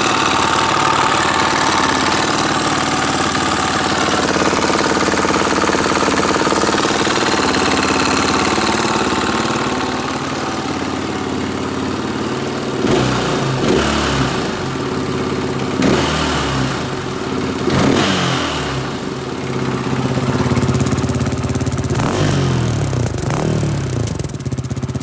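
2017 KTM 450 EXC-F's single-cylinder four-stroke engine idling steadily, then revved in a series of quick throttle blips from about halfway through. It has a knock that the owner doubts is normal, having found silver non-magnetic metal shavings in the drained oil.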